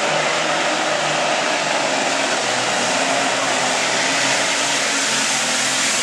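Modified John Deere farm tractor's diesel engine running at full throttle under heavy load as it pulls a weight-transfer sled, loud and steady throughout.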